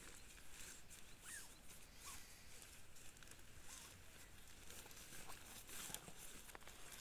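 Faint rustling and crinkling of a nylon tent's fabric as it is handled and spread out, coming in short rustles on and off.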